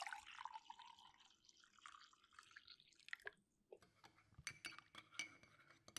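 Tea being poured into a cup for about three seconds, faint, followed by a few light, ringing clinks of china.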